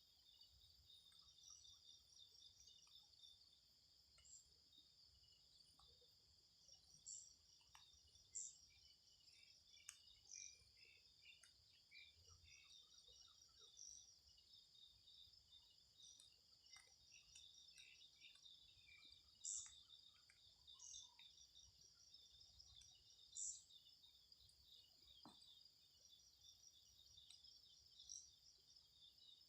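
Faint, steady chorus of insects, crickets or cicadas, with a few short, high bird chirps scattered through it.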